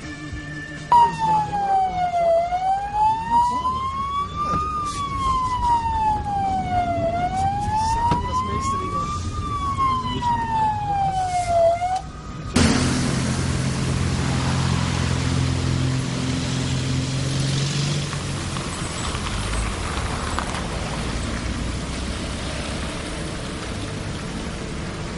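Police siren wailing, its pitch sliding slowly up and down about every four and a half seconds for roughly eleven seconds, then stopping. After an abrupt cut, the steady rush of a car driving at speed, with engine hum under road and wind noise.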